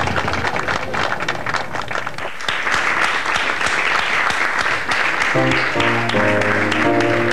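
Audience applauding steadily, growing fuller about two and a half seconds in. About five seconds in, a band starts playing over the clapping.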